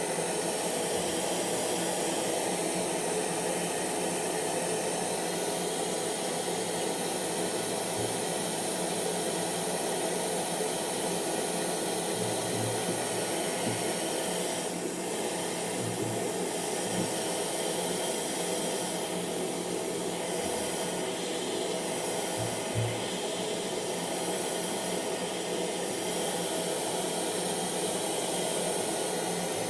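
Hair dryer running steadily: an even rushing hiss of air from the fan, with a faint steady motor hum under it.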